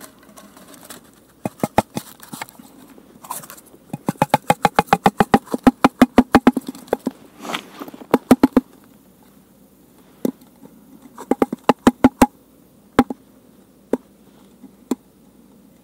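Sharp clicks and taps from handling a mortar tube while a homemade firework shell is loaded into it. About four seconds in comes a quick regular run of about five clicks a second, followed later by scattered single knocks.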